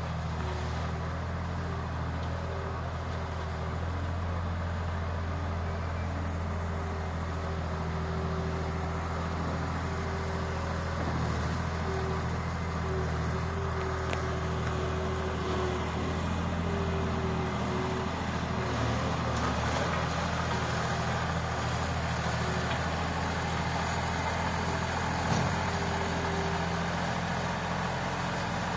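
Construction machinery engine running steadily: a low drone with a higher tone that drops in and out.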